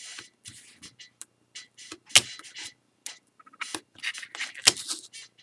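Hobby knife cutting through the small tabs that hold a cardstock rocket fin in its sheet, against a cutting mat: a string of short scratchy cuts and clicks, with sharper snaps about two seconds in and near the end.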